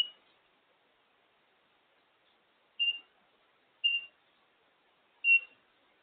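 African grey parrot giving short, high, beep-like whistles, four single notes at uneven gaps: the start, about three seconds in, about four seconds in and just past five seconds.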